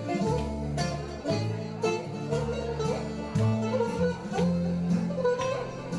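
Greek instrumental music: a bouzouki plucking a quick melody over a steady, rhythmic bass line.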